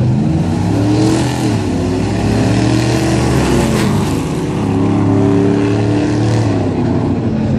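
Two stock gasoline pickup trucks drag racing side by side on a dirt strip, engines at full throttle with the pitch climbing and falling. They pass close by about four seconds in with a rush of noise, then fade down the track.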